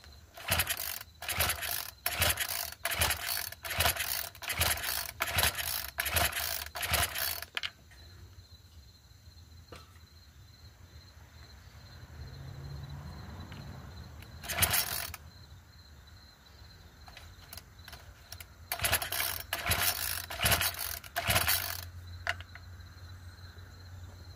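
Recoil pull-starter of a Craftsman 25cc four-stroke mini cultivator being yanked over and over, about two quick pulls a second, in two long runs with a single pull between them: the rope whirring out and the starter pawls ratcheting as the engine is cranked. The engine does not catch.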